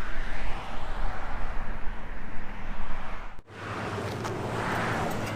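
Wind buffeting the microphone, an uneven low rumble that cuts off suddenly about three and a half seconds in, followed by a steadier, quieter background noise with a low hum.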